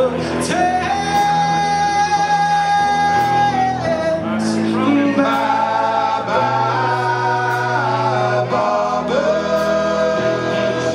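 A live band of guitars, bass, drums, trombone and tenor saxophone playing with singing; long held notes change about every two to three seconds over steady cymbal strokes.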